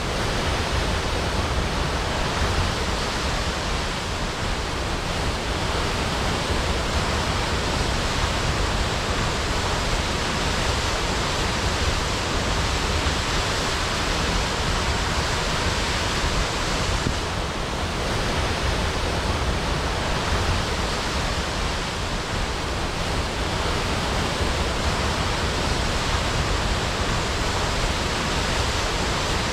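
Waterfall crashing: a steady, dense rush of falling water.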